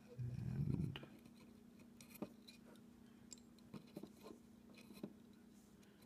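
Faint scattered ticks and light scrapes of a soldering iron tip and a wire end working at a solder bridge on a circuit board, over a steady low hum, with a short low murmur in the first second.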